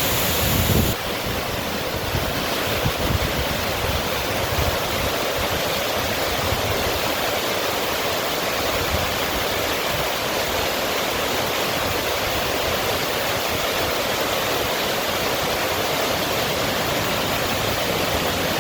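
River water rushing and splashing in a steady, even roar, with a few low thumps in the first few seconds.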